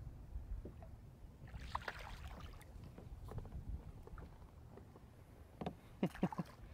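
Water splashing beside a fishing kayak as a hooked fish is played at the surface, with a louder splash about two seconds in and a few sharp knocks near the end, over a low steady rumble.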